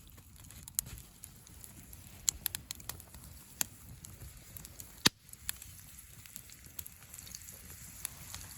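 Wood campfire crackling: irregular sharp pops from burning wood, a few a second, the loudest about five seconds in.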